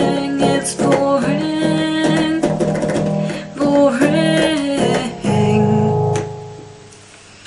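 Vintage organ playing the song's closing chords, with its keys clicking audibly. A last chord comes in about five seconds in, is held, and fades away.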